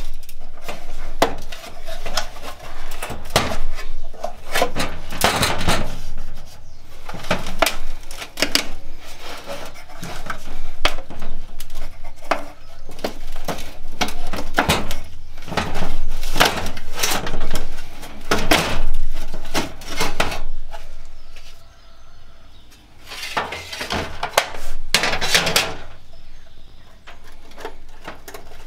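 Irregular metallic clanks, clicks and scrapes as the original heater box of a 1979 Classic Mini is taken apart by hand, its steel casing knocking on a metal bench, with a quieter spell about three quarters of the way through.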